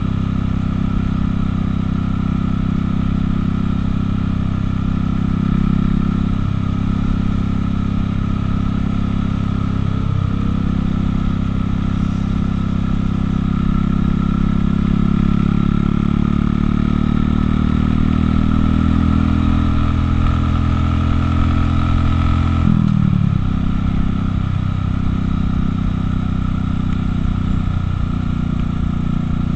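Buell motorcycle engine running under way at cruising speed, heard from the rider's seat. Its revs climb slowly through the middle, drop sharply about 23 seconds in, and then hold steady.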